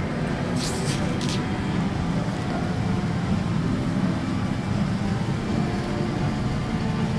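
Steady low hum of a Boeing 787-9 airliner cabin's air-conditioning and ventilation with the aircraft parked, with two short hissing rustles about a second in.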